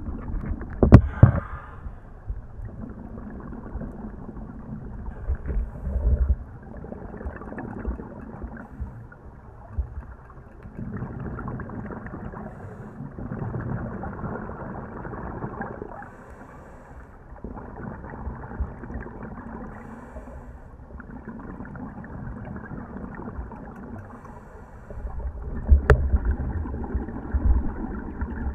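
Muffled underwater noise of scuba diving: a diver's regulator breathing, with bubbling from exhaled air that swells and fades every few seconds. A sharp knock about a second in and another near the end.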